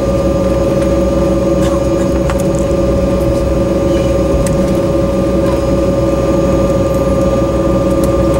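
Steady whine and hum heard inside the cabin of an Embraer 190 whose two GE CF34-10E engines are running at low taxi power, with one strong steady tone over an even rumble.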